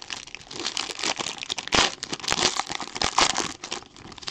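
Foil wrapper of a 2017 Topps Tier One baseball card pack being torn open and crinkled by hand. It is a dense run of quick crackles, and the sharpest crackle comes a little under two seconds in.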